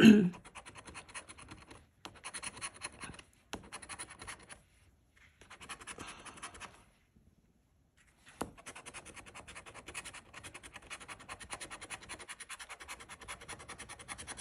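A large metal coin scraping the coating off a paper scratch-off lottery ticket in quick back-and-forth strokes. The scraping comes in several bouts with short pauses, and there are two sharp clicks, one about a third of the way in and one just past halfway.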